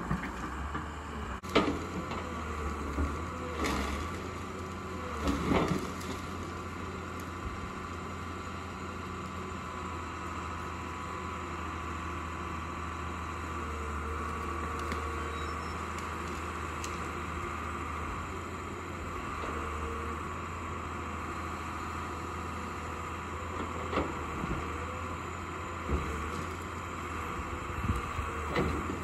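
Hyundai Robex 200 LC crawler excavator's Cummins 6BT5.9 six-cylinder diesel running steadily with a high whine as the boom works against a tree. A few sharp knocks or cracks break through, several near the start and several near the end.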